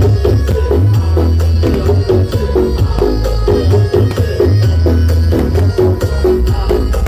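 Very loud music with a heavy, booming bass line and a busy drum beat, played through sound horeg, the giant stacked speaker systems.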